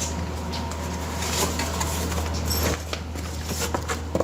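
Packaging and a soft tool bag being handled, giving irregular rustling, crinkling and small clicks, over a steady low hum.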